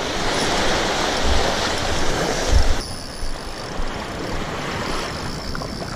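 Small waves washing in the surf with wind buffeting the microphone and a couple of low thumps. The noise changes abruptly about three seconds in.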